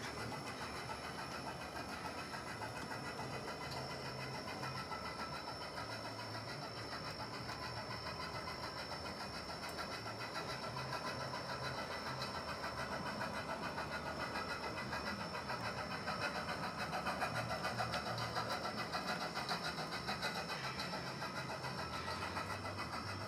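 A 1:24-scale model steam locomotive and its freight cars running steadily along the track: a continuous mechanical whir from the motor and wheels on the rails, a little louder for a few seconds about two-thirds of the way through.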